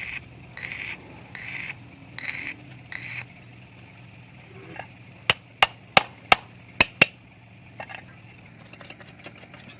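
A hammer strikes metal six times in quick succession, sharp ringing blows, a little past the middle. Before them come five short rasping strokes, a little under one a second, and a few light clicks follow near the end.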